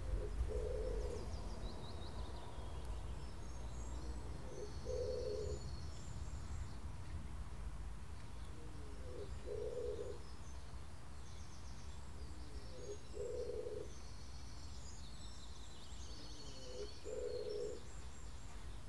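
A dove cooing in a garden, repeating the same low phrase about every four seconds, five times. Small birds chirp faintly higher up, over a steady low background rumble.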